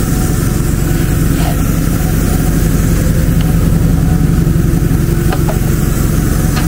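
A small engine running steadily at an even speed, a constant low drone with no change in pitch.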